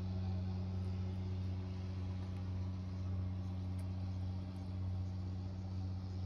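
A steady low motor hum with an even, unchanging drone.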